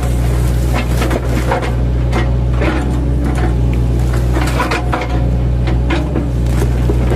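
Mini excavator's diesel engine running steadily under hydraulic load, with irregular knocks and crunches as its bucket chops into a felled oil palm trunk.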